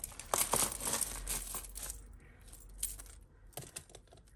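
A pile of costume jewellery clinking and rattling as it is sorted by hand, with beads and chains knocking together. The clicks come thick and fast for the first two seconds, then thin out to a few separate clinks.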